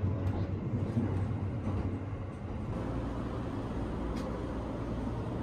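Sunrise Express sleeper train running, a steady low rumble heard from inside the car's corridor, with a faint click about four seconds in.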